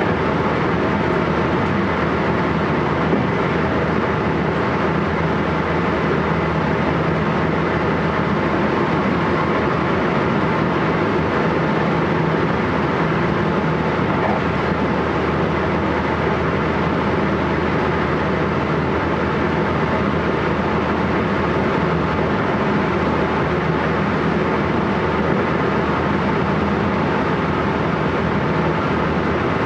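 JR West 223 series 1000 electric train, the Hitachi-VVVF second-batch motor car, running steadily at speed: an even, loud rumble of wheels and running gear on the rails, with no rise or fall in motor pitch.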